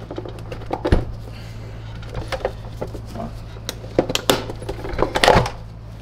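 Plastic top housing of a SEBO ET-C vacuum powerhead being pried and pulled off by hand: a series of clicks, knocks and snaps from the plastic case, the loudest about a second in and again near the end.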